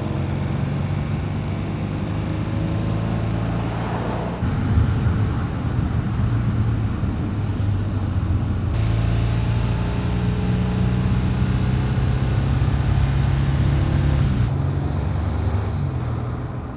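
2024 Porsche Cayenne's engine and exhaust running as the SUV drives on the road, with a steady engine note and slight rises in pitch. The sound changes abruptly at shot cuts about four, nine and fourteen seconds in, and fades near the end.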